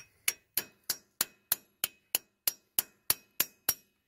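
A 22-ounce Estwing framing hammer striking metal in a steady run of about thirteen sharp, ringing blows, roughly three a second, stopping near the end: it is driving the steel block heater bushing into the freeze plug hole of a Kubota diesel engine block, where the fit has grown stiff.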